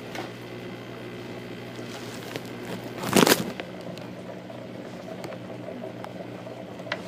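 Aquarium air pump humming steadily while air bubbles through the water of a phytoplankton culture cup. A brief, loud handling noise comes about three seconds in, with a few small clicks later.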